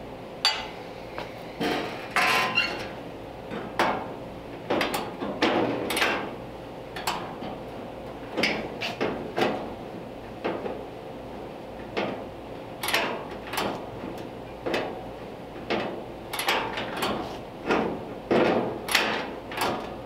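Sharp metal clacks and knocks, roughly one a second and some in quick pairs, from a Model T door latch and steel door structure being worked and tried for fit.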